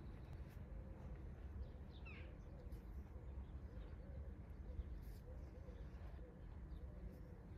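Faint birdsong over a low steady rumble, with one clearer falling chirp about two seconds in.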